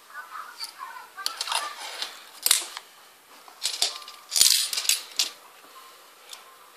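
A small screwdriver and a plastic toy car clicking and clattering against a glass tabletop: scattered sharp clicks and short rattles, loudest around the middle and fewer near the end.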